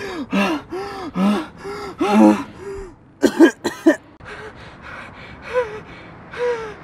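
A man gasping and grunting in short voiced breaths, about two a second. There are a few louder, sharper gasps about three seconds in, then fainter groans.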